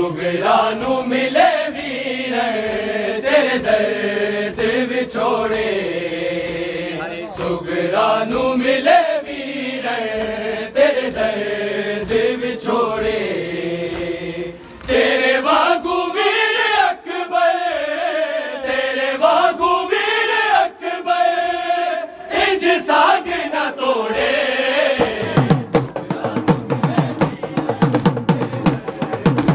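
Men chanting a noha, a mourning lament, in a slow melody that rises and falls, with a short break about halfway. Near the end, fast rhythmic chest-beating slaps of matam come in over the chant.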